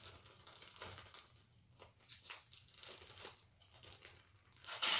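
Plastic zip-top bag crinkling faintly in scattered short crackles as it is handled around a shaving cream can. Just before the end the can starts to hiss loudly as shaving cream sprays into the bag.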